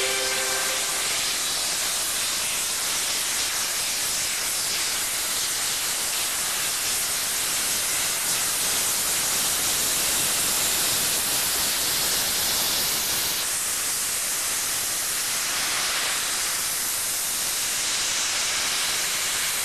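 BR Rebuilt Merchant Navy class steam locomotive No 35028 Clan Line letting off steam, a steady loud hiss that goes on unbroken.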